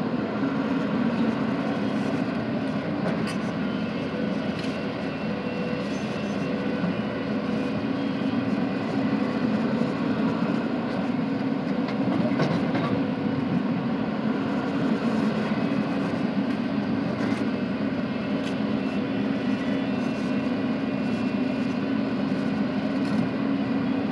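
Steady drone of heavy diesel machinery, a Cat 320 excavator working as it loads a dumper truck, with a few faint clicks and knocks.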